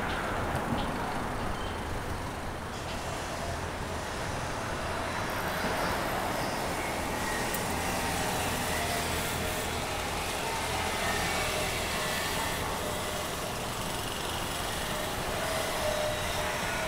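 Steady city road traffic: cars and other vehicles running along a busy street, an even rush of engine and tyre noise with no single sound standing out.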